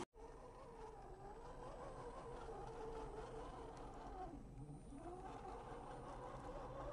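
Electric drive motor and gearbox of an RC crawler on a Boomracing Defender 110 chassis, giving a faint whine as it drives slowly over dirt. The pitch wavers with the throttle, dips past the middle and rises again.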